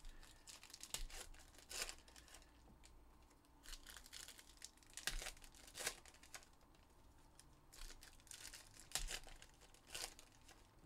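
Wrapping of sealed trading-card packs being torn open and crinkled by hand: a quiet run of short crackling rips and rustles, coming in clusters with brief pauses.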